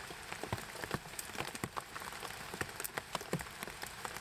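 Heavy rain falling steadily on and around a forest shelter, with many irregular sharp drop hits over the hiss of the downpour.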